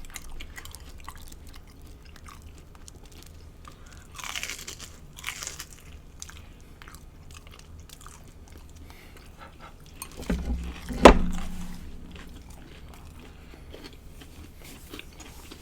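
Biting and chewing of crunchy deep-fried battered seafood. Two crunchy bites come about four to five seconds in, and a sharp loud crack, the loudest sound, comes about eleven seconds in.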